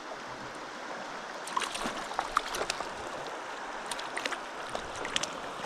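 Trout stream water flowing steadily, with scattered short clicks and ticks from about a second and a half in until near the end.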